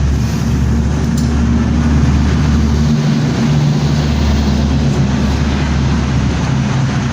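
A steady mechanical drone, like a motor or engine running, with a low hum that dips briefly about three seconds in.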